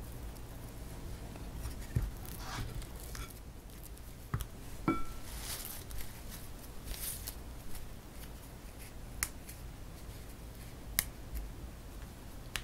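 Hands picking over fresh mugwort: soft rustling of leaves and stems with scattered sharp clicks and snaps, and a short ringing ping about five seconds in.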